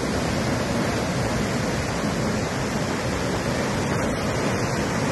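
Muddy floodwater of a swollen river rushing past and under a road bridge, a steady, loud rush of turbulent water. The river is in flood, high enough that it is starting to run over the bridge deck.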